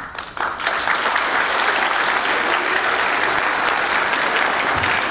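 Audience of schoolchildren applauding, starting suddenly and swelling within half a second, then holding steady: applause welcoming presenters to the stage.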